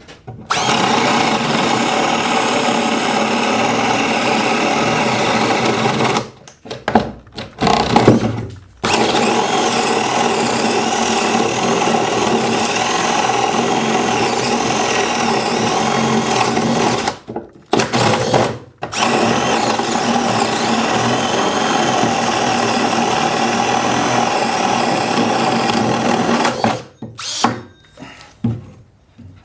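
Milwaukee 2602-20 M18 cordless hammer drill boring holes in a 2x8 plank with a 1.5-inch spade bit. It runs steadily in three long stretches of several seconds each, with brief stops and short bursts of the trigger between them.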